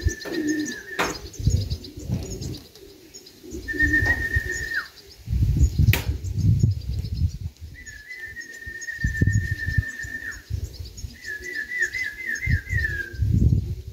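A pigeon fancier whistling to call racing pigeons down to the loft, with pigeons cooing. There are four high, steady whistled notes that each slide down at the end: a short one at the start, a second about four seconds in, a long one of about two and a half seconds, and a warbling trill near the end.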